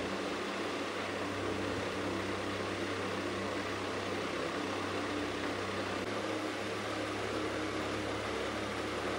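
Steady mechanical hum under an even hiss, like a fan or appliance running, with no changes.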